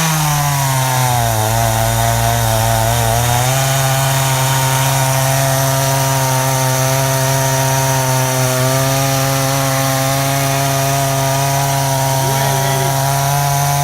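Chainsaw engine running at full throttle while ripping a log lengthwise in a rail-guided chainsaw mill. Its pitch sags about half a second in as the chain loads up in the cut, recovers after a few seconds, then holds steady.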